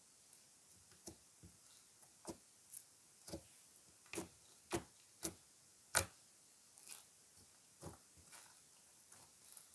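Slime being worked by hand, giving a string of short sticky clicks and pops at irregular intervals, about ten in all, the loudest about six seconds in.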